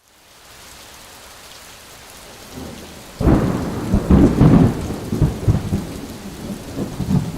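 Hurricane rain hissing steadily, then from about three seconds in heavy wind gusts buffet the microphone in loud, uneven rumbling blasts.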